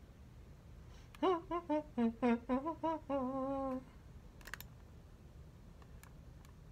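A man humming a short tune with his mouth closed: about eight quick, bending notes, then a held note that stops short. A faint click follows a little later.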